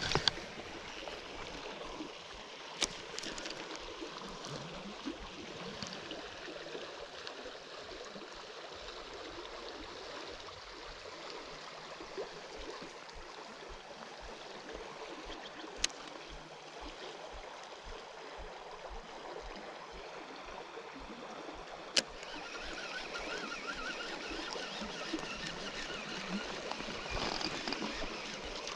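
Shallow river current rippling past a gravel bank in a steady wash. Three sharp clicks stand out, and the water grows a little louder over the last few seconds.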